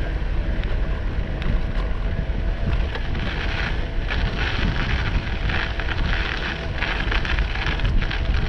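Wind rumbling on the microphone of a moving bicycle, with the tires crunching and hissing over a thin layer of snow, in a steady crackle.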